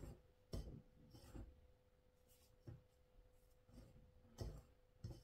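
Quiet, irregular scuffing as a hand rubs and mixes flour and butter in a ceramic bowl, with a few light knocks of the hand against the bowl.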